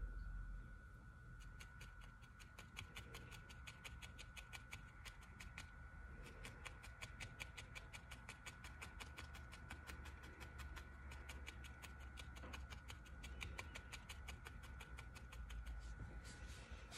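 Felting needle jabbing repeatedly into wool roving, quick soft pokes about four a second with a couple of short pauses, as the wool is felted into shape.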